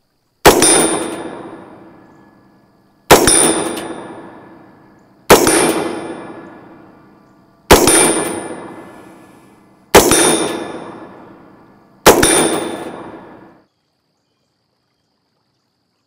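Six single rifle shots of 5.56 mm 62-grain steel-core penetrator rounds, about two seconds apart, striking a metal louvered ballistic barrier. Each hit leaves the plate ringing with a clang that dies away over about a second and a half.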